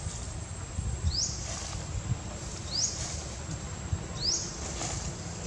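Outdoor ambience: a short rising chirp repeats about every second and a half over a steady high-pitched whine, with a low rumble underneath.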